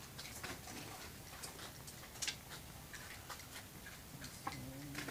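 Faint, scattered light clicks and ticks at irregular intervals, with a brief low call near the end.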